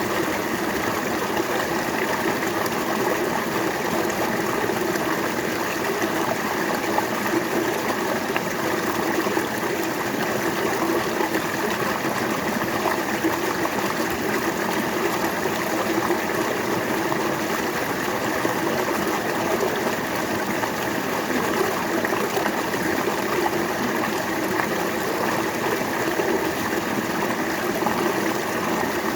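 River water flowing steadily over rocks, a continuous even rush and babble.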